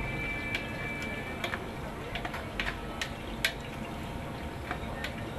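Irregular sharp clinks of a metal utensil knocking against steel cooking pots while food is scooped out, over steady low background noise.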